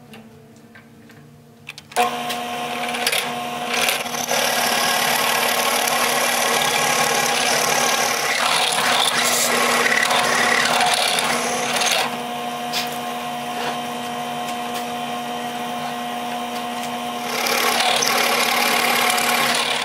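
Benchtop drill press switching on about two seconds in, its motor running steadily while the bit bores into a wooden sled runner and throws up wood chips. It is louder from about four seconds in until about twelve, and again near the end.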